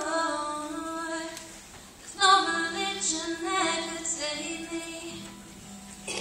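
A teenage girl singing a slow ballad solo, with her acoustic guitar faint beneath. One phrase trails off about a second and a half in, and after a short breath a louder phrase begins and is held for a few seconds.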